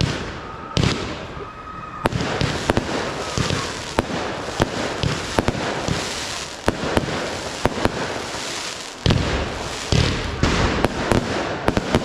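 Fireworks display: a dense run of sharp bangs and crackling, with a few louder bangs about a second in and again near the end.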